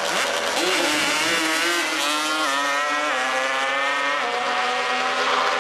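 Drag-racing ATV engine launching at full throttle. Its pitch climbs and drops back at three upshifts, about two, three and four seconds in.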